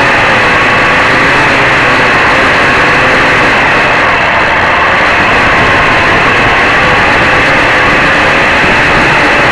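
Quadcopter with four DT750 brushless motors spinning 11x4.7 Gemfan propellers, heard from a camera mounted on the airframe: a loud, steady whir whose faint tones drift up and down in pitch as the throttle shifts.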